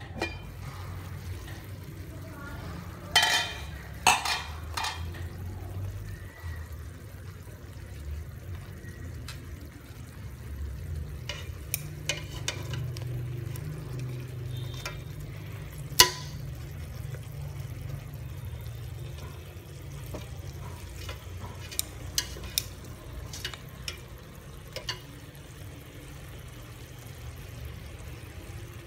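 Chopsticks stirring and turning pieces of boiled chicken in an aluminium pot, with scattered sharp clinks and knocks against the metal, a cluster of clatters a few seconds in and the loudest knock about 16 seconds in, over a steady low rumble.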